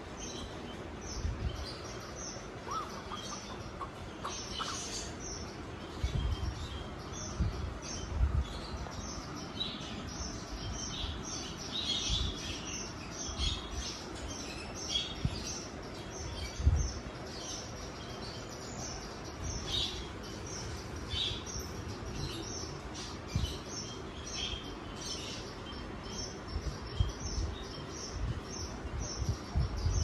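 Alexandrine parakeets chirping: many short, high chirps scattered throughout, with occasional low thumps.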